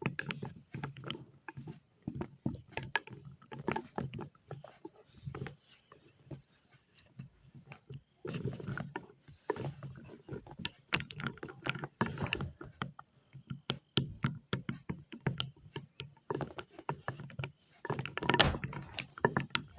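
Wet chalk being handled: irregular clicks and crackles, thickening into denser runs about eight seconds in and again near the end.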